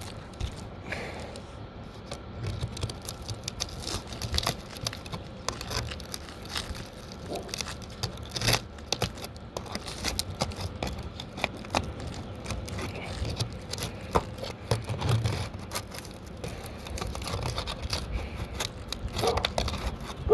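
Stiff asphalt shingles scraping, crinkling and clicking as they are handled and lifted, in a long irregular run of small rustles and sharp ticks.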